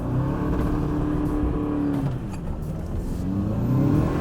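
Toyota pickup truck engine revving under load while pulling a stuck truck through deep snow. The revs climb and hold, drop about two seconds in, then climb again near the end.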